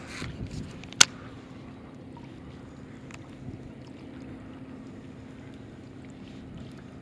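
A baitcasting reel gives one sharp click about a second in, as it is engaged after a cast. A steady low motor hum runs underneath.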